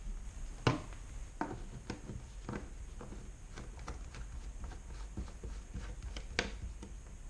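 Irregular plastic clicks and knocks as hands handle plastic containers and screw the spout cap onto a plastic gas can, with a sharper knock about two-thirds of a second in and another near the end.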